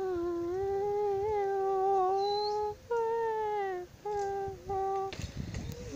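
A child humming a few long, held notes near the microphone. The first note lasts about three seconds, followed by three shorter ones.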